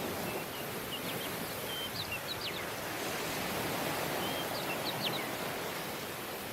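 Steady wash of surf on a tropical beach, with small birds giving quick, high chirps in two short flurries, the first starting about half a second in and the second near the end.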